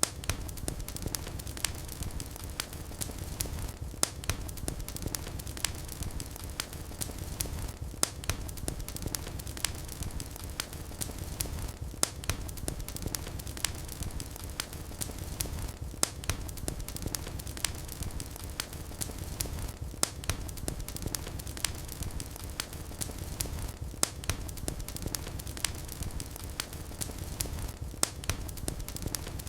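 Fireplace fire crackling: many small sharp crackles and louder pops every few seconds over a low steady rumble of the flames.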